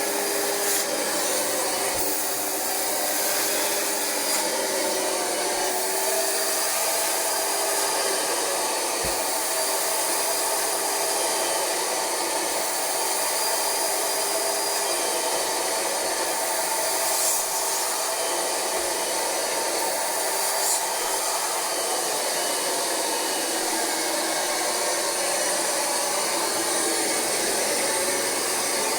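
Rug Doctor carpet cleaner running steadily with its upholstery hand tool, the vacuum motor giving an even whine while it extracts cleaning solution from the couch fabric.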